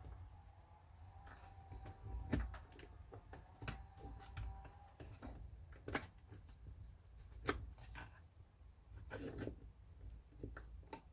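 Scattered light clicks and taps of a 2001 Ford F350 fuse box's plastic parts being handled and fitted back together, with a faint steady tone through the first half.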